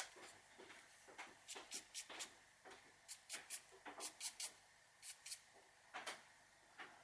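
Short, irregular rubbing strokes as excess graphite powder is wiped off a remote control's rubber button pads, with a sharp click right at the start.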